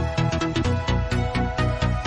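Electronic dance music with a steady, fast beat, about four beats a second.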